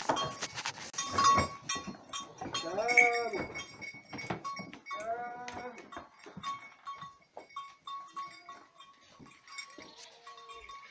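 Goats bleating in a wooden barn: two clear bleats about three and five seconds in, and fainter ones later, amid the clatter and knocking of hooves on the board floor. A thin steady high tone runs underneath.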